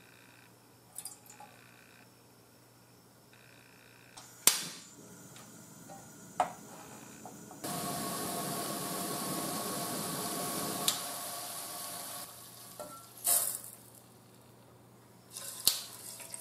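Mirin and sake boiling in an aluminium saucepan on a portable gas stove: a steady bubbling hiss for about four and a half seconds in the middle, starting and stopping abruptly. A few sharp clicks and knocks come before and after it.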